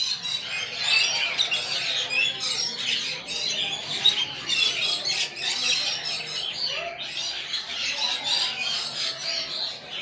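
A shop full of caged lovebirds, budgerigars and other small birds chirping and squawking at once, a dense unbroken chatter.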